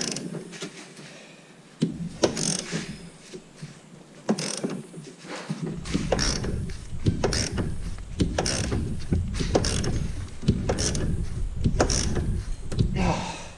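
Hand ratchet and socket on a long extension turning a very tight engine-mount bolt: ratcheting strokes about once a second, with a heavier low rumble from about halfway in as the bolt draws the mount in.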